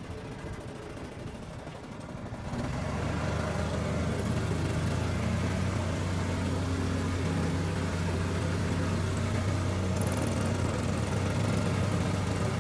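A passenger boat's motor running under way with a steady low drone. It gets louder about two and a half seconds in as the boat picks up speed.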